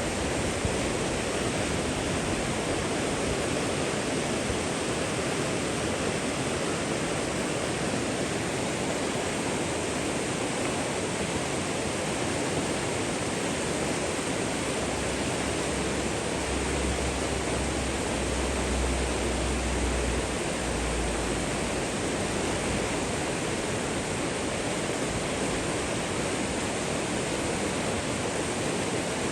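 Water rushing steadily, like a stream or small waterfall, an even unbroken hiss. A faint low rumble rises under it for a few seconds in the middle.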